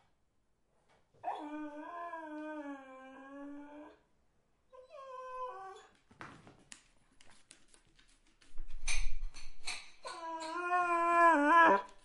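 A dog whining: a long drawn-out whine, a short higher whine, then a run of clicks and bumping noises, and a second long whine that wavers and rises near the end.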